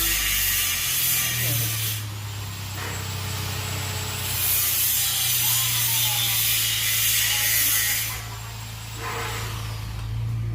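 Steady, rasping hiss in two long stretches: the first stops about two seconds in, the second runs from about four seconds in to about eight seconds in. A steady low hum runs underneath.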